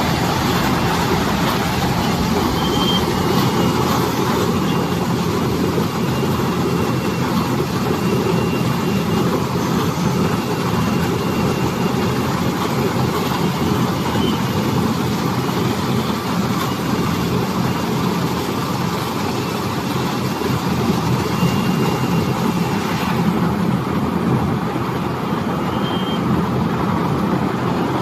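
Silage round baler and bale wrapper machine running, a loud, steady mechanical noise.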